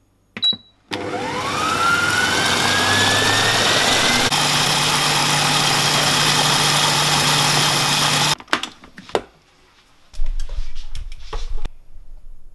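Silvercrest Monsieur Cuisine SKMH 1100 food processor: a short beep as it is started, then its blade motor spins up with a rising whine and runs steadily at speed 6, mixing crêpe batter, for about seven seconds before cutting off suddenly. A few clicks and knocks follow.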